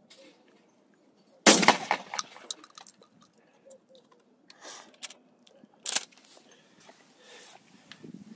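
A shotgun fires once about a second and a half in, its loud report ringing off for about a second, followed by scattered clicks of the gun being handled. A second, quieter sharp bang comes about six seconds in.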